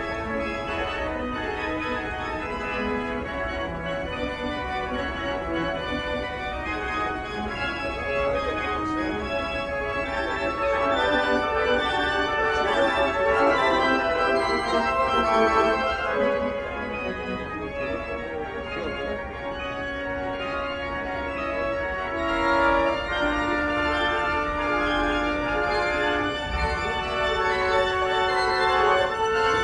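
Organ playing sustained chords, its notes held and changing every second or two.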